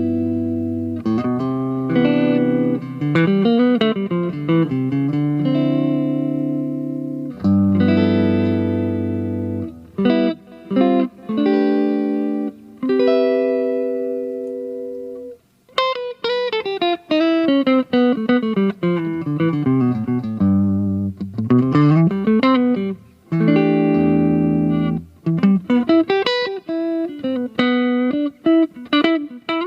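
Aria Pro II PE electric guitar playing held, ringing chords alternating with fast single-note runs that step down and back up the neck, notably a long descending run about halfway through.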